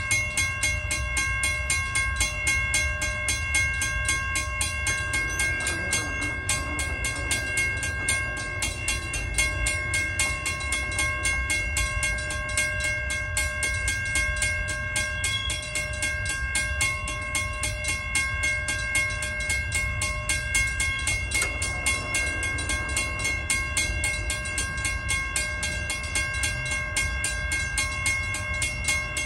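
Railroad crossing warning bell ringing continuously in rapid, even strikes with a steady metallic tone. The crossing gate arms lower and later rise during the ringing.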